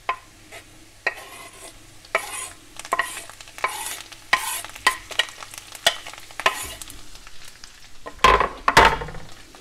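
Garlic sizzling in olive oil and butter in a frying pan while a knife scrapes chopped parsley and green onion off a wooden cutting board into it, in a run of short scrapes and taps. Two louder knocks near the end.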